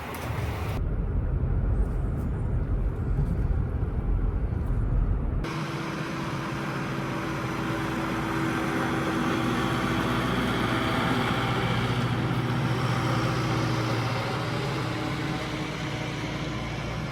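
Car driving: steady road and engine noise, changing abruptly about a second in and again about five seconds in as separate clips are cut together. The middle stretch is a heavy low rumble; the last part is a broader road noise with a steady low hum.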